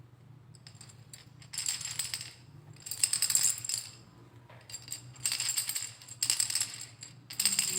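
Montessori sound-box cylinders being shaken one after another, each giving a short, dry rattle from its filling. There are about five separate shakes, and some rattle louder than others, as the cylinders are compared to find the softest.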